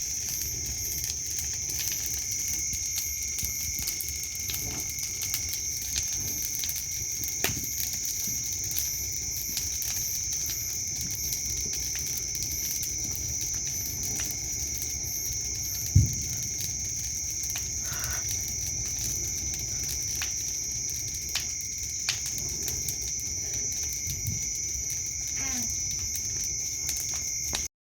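Crickets chirping steadily in a high unbroken drone over a burning wood-and-tyre bonfire, which crackles with scattered small pops and one sharp loud pop about sixteen seconds in.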